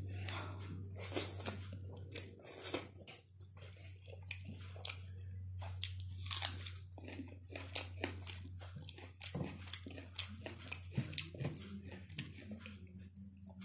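Close-up mouth sounds of a person eating spicy instant noodles by hand: wet chewing, biting and lip smacks in irregular quick clicks, over a steady low hum.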